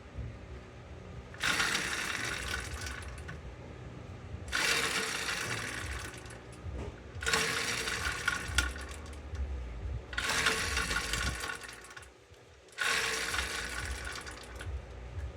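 Motorized bicycle engine being turned over without firing: five separate tries, each about two seconds of mechanical whirring with a steady tone, with short pauses between them.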